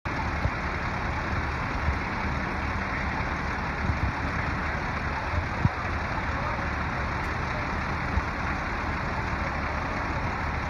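Truck-mounted crane's engine running steadily while it holds a tree aloft on its hook, with a few brief low thumps.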